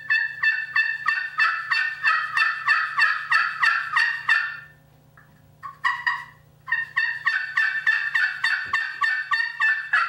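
Wood-pot turkey call with a glass surface, scratched with a cherrywood striker to make hen yelps: two long runs of quick notes, about four or five a second, each breaking from a higher to a lower pitch, with a pause of about two seconds in the middle.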